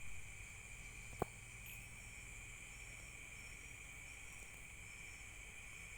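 Insects, likely crickets, chirping in a steady high-pitched chorus, with a single sharp click about a second in.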